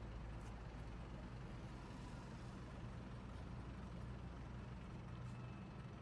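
Faint, steady low engine hum of a skylift (aerial work platform) truck running while its boom is raised.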